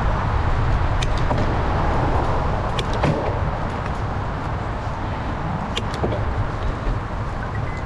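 Wind rushing over the microphone and road rumble from a bicycle on the move, with a few sharp clicks and rattles.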